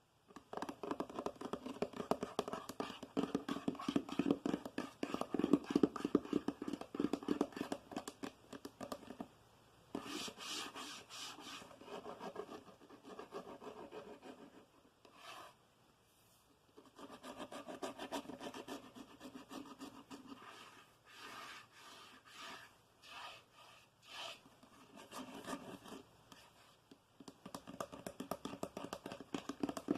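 Fingernails tapping and scratching on a hard surface, close to the microphone, in fast runs of clicks that stop and start, with a few short pauses.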